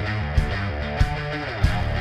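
Intro music: rock backing track with guitar and a steady drum beat.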